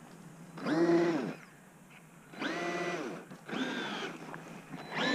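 Traxxas Maxx RC truck's brushless electric motor whining in four short bursts of throttle, each rising in pitch, holding briefly and falling away; the first, about a second in, is the loudest.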